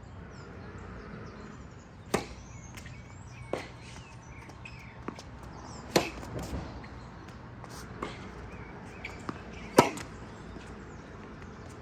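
Tennis ball struck by racquets in a rally on a hard court: sharp pops a second or two apart, with softer ball bounces between them. The loudest hit comes near the end.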